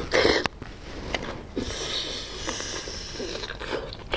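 Close-miked breath and mouth sounds of a person eating: a sharp breath or slurp right at the start, then a soft, drawn-out breathy hiss with small mouth clicks.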